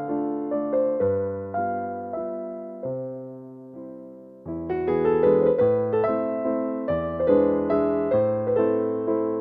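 Background piano music, melody notes and chords each dying away. It thins out and fades around three to four seconds in, then picks up again with fuller chords about four and a half seconds in.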